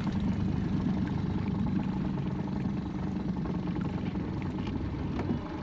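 A boat motor running steadily at low speed, a constant hum.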